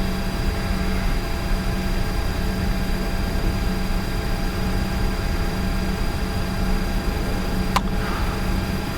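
Steady cockpit hum of a Bombardier Challenger 605, its two CF34 turbofans running at idle, with constant whining tones over a low rumble. A single sharp click sounds about eight seconds in.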